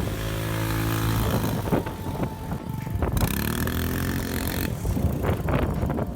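Small off-road vehicle engine running, steady at first, then rising and falling in pitch as it revs. The sound changes abruptly twice.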